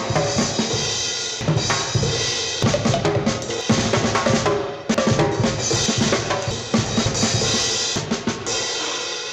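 Music with a busy drum-kit beat, kick and snare hits throughout, dipping briefly a little under five seconds in.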